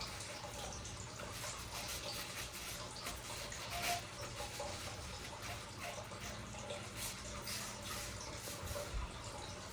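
Soft rubbing and handling sounds as a cloth works polish over a copper fire extinguisher, with scattered small clicks and one sharper tick about four seconds in.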